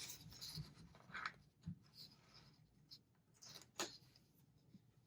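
Faint handling sounds of paper and washi tape on a planner page: a few soft rustles and light taps, spaced out and brief.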